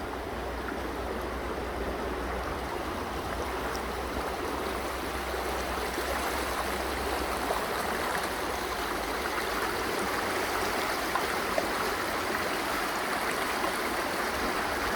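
Raging river rapids rushing over rock, a steady, even rush of water.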